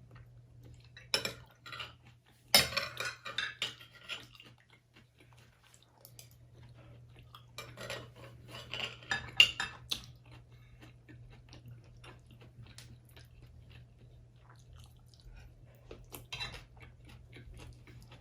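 Spoon clinking and scraping against a bowl while eating, in a few short spells of sharp clinks with quiet gaps between.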